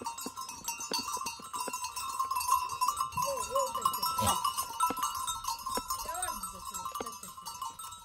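Livestock bells clanking and jingling continuously as a flock moves, with wavering bleats about three seconds in and again about six seconds in.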